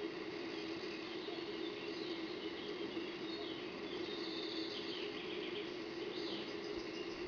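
Outdoor woodland ambience: a steady low hum under an even hiss, with a few short, falling high-pitched chirps about two seconds in, around the middle and near the end.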